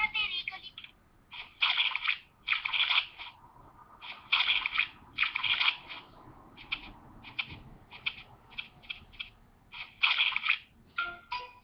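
Cartoon muddy-puddle splash sound effects played through a tablet's small speaker: a series of squelchy splashes of about half a second each, with a run of quicker, shorter ones in the middle.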